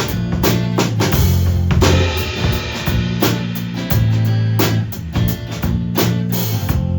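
Live band music: a drum kit keeps a steady beat under sustained bass notes and guitar.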